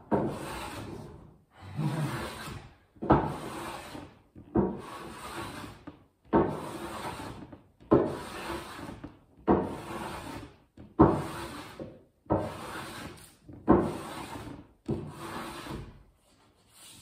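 Hand plane set to a fine cut, shaving along a wooden edge in repeated push strokes, about one every second and a half. Each stroke starts sharply and tails off.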